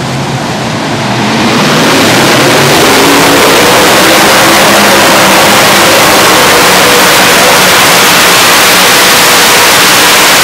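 Modified pulling tractor with several supercharged engines running at full throttle as it drags the weight-transfer sled down the track. The roar swells over the first couple of seconds, then holds steady and very loud.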